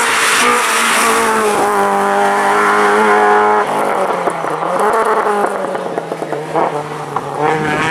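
Hill-climb race car's engine at high revs as it passes and pulls away up the course. The pitch holds steady, drops suddenly about three and a half seconds in at a gear change, and climbs again.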